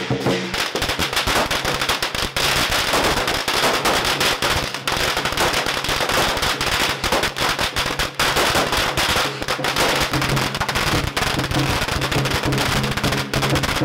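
A long string of firecrackers going off in a rapid, dense crackle of pops. Music comes back in underneath during the last few seconds.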